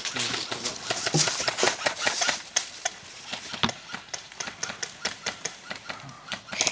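Irregular sharp clicks and taps at an airsoft game, typical of airsoft guns firing single shots and BBs striking cover, with rustling in the first couple of seconds.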